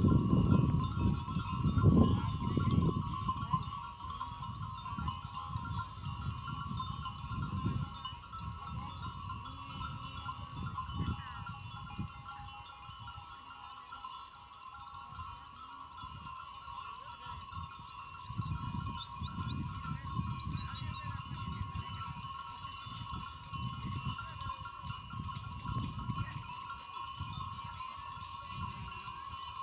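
Goat neck bells ringing and clinking steadily as the goats move, with goats bleating now and then. A louder low rumbling runs through the first few seconds.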